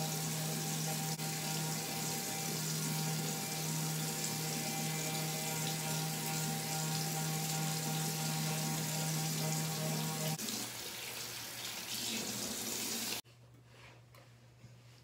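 A bathroom tap running over a sink, with the steady hum of a handheld electric facial cleansing brush. The hum stops about ten seconds in, and the running water cuts off sharply about three seconds later.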